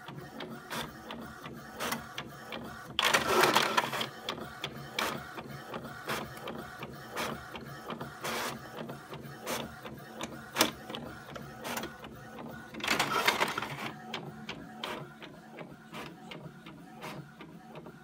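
Epson XP-225 inkjet printer printing: the print-head carriage shuttles back and forth with a quick, even series of clicks and whirs. Twice, about three seconds in and again about ten seconds later, it makes a longer, louder whirring stretch.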